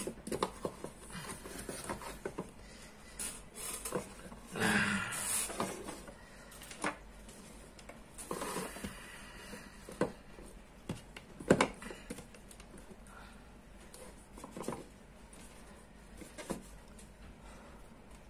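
Hands handling insulated electrical wires and plastic light-switch plates on a tabletop: scattered rustles and light clicks, with a sharper click a little past the middle.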